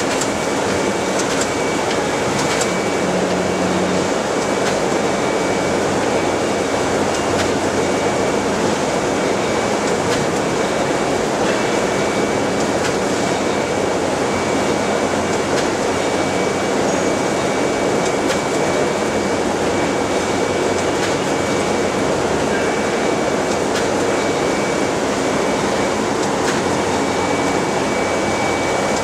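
Kallfass packaging machine running with its seal bar malfunctioning: a steady mechanical din with a faint high whine that comes and goes and a few light clicks.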